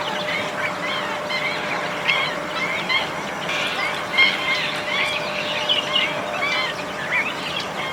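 A flock of wetland birds calling all at once: a dense, unbroken chorus of many short, overlapping rising-and-falling calls. A faint steady hum sits underneath.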